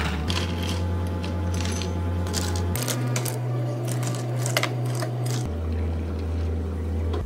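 Ice cubes clinking and rattling in a stainless-steel ice scoop and tumbling into plastic cups, in quick irregular clicks. Near the end, espresso is poured from a small metal pitcher over ice.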